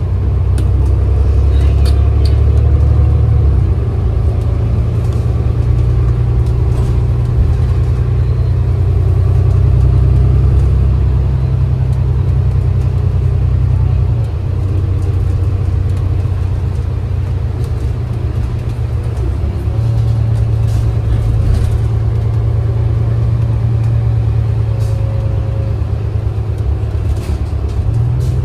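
Interior ride noise of a New Flyer XD40 Xcelsior diesel transit bus under way: a steady low engine and road rumble with light rattles. The rumble eases off about halfway through and builds again a few seconds later.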